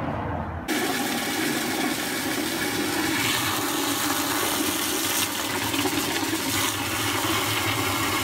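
Water from a garden hose spray gun jetting into a plastic bucket of soapy water, filling it and frothing up the shampoo. The rush starts abruptly about a second in and then holds steady.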